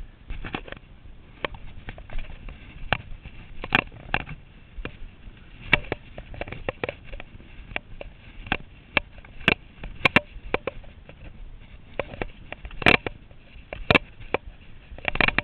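Ski boots crunching and knocking on a packed snow bootpack in irregular steps, about one or two a second, with the climber's hard, breathy breathing on the microphone.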